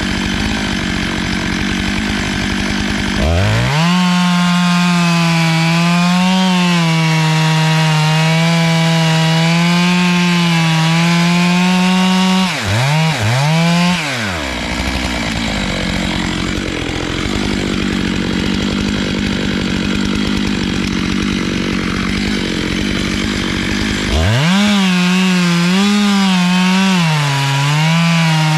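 Stihl MS 661 two-stroke chainsaw on a small log mill, run at full throttle through a log. Its pitch jumps up about three seconds in and wavers as the chain meets changing load. Around halfway it drops and picks up twice, runs rougher for a while, and revs back up near the end.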